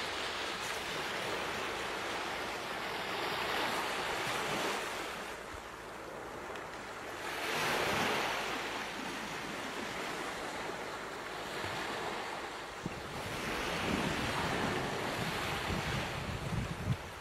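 Ocean surf: waves washing in and falling back, surging and fading every few seconds.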